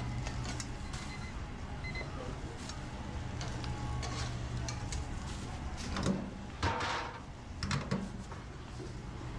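Commercial kitchen at work: a steady low hum of kitchen equipment under light clicks of metal tongs at a char-grill. A few louder metal clatters and scrapes come about six to eight seconds in, at the fryer station.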